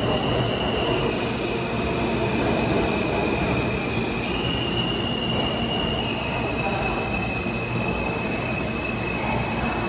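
R160 New York City subway train running with a steady rumble, over which the wheels give a thin high squeal that shifts in pitch a few times.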